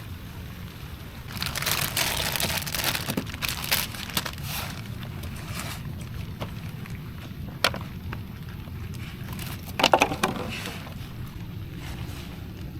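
Water splashing and sloshing against a canoe in bursts, the loudest about ten seconds in, with a sharp knock midway, over a steady low rumble of wind.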